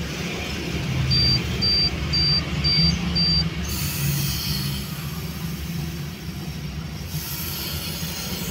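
Suzuki APV Arena's four-cylinder engine idling with a steady low hum, while an aerosol injection cleaner is sprayed through its straw into the throttle-body intake. A hiss from the spray comes in about four seconds in and carries on through most of the rest.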